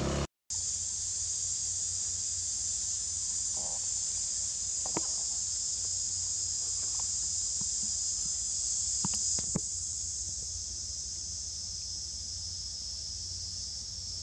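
Insects droning steadily at a high pitch, with a few faint clicks near the middle.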